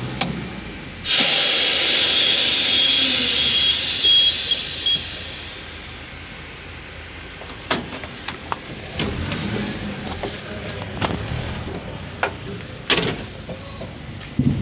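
Sudden loud hiss of compressed air released from a truck's air brake system, lasting about four seconds and tapering off, followed by a few scattered knocks and clicks of the cab door and steps.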